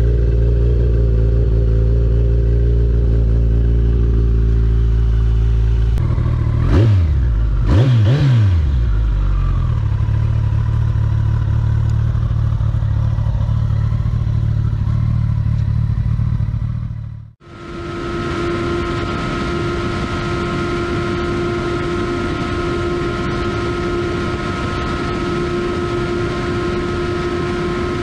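Kawasaki ZX-14R's 1352 cc inline-four, fitted with Akrapovič exhausts, idling steadily and blipped twice, about 7 and 8 seconds in, before settling back to idle. After about 17 seconds the sound changes abruptly to the same model at a steady high speed near 300 km/h: the engine holds a high, even tone under heavy wind rush.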